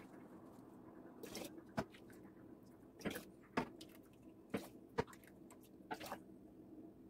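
Metal ladle scooping hot whole-cherry jam from a metal pot and pouring it into a jar through a funnel: soft wet squelching of syrup and cherries, with about eight sharp clinks of metal on metal.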